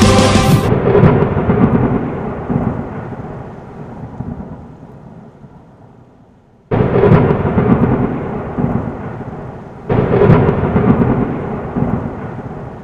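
Intro sound effects: three loud, deep rumbles like thunderclaps. Each hits suddenly and fades out over a few seconds: the first as the music stops, just under a second in, the next about 7 s in, the last about 10 s in.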